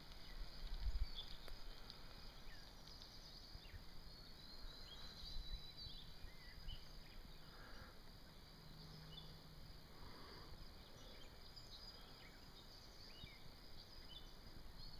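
Quiet outdoor ambience: small birds chirping in short, repeated calls over a faint, steady insect hum.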